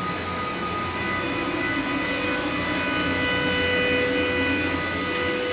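Steady drone of machine-room equipment: a constant low hum with several steady pitched tones over it.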